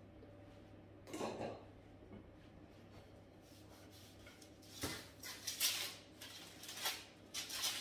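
Wooden rolling pin rolling out pastry dough on parchment paper: short scrapes and paper rustles, one soft one about a second in and several in quick succession over the last three seconds.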